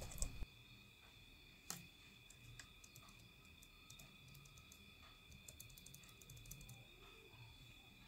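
Faint, scattered keystrokes on a Sony VAIO laptop's newly replaced keyboard, being typed on to test it: one sharper key click a little before two seconds in and a quick run of light taps around six seconds in. A faint steady high whine runs underneath.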